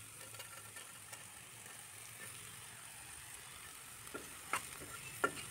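Faint sizzling of onion-tomato masala in a steel kadai as soaked soya chunks go in, then from about four seconds in a few clinks and scrapes of a steel ladle stirring them.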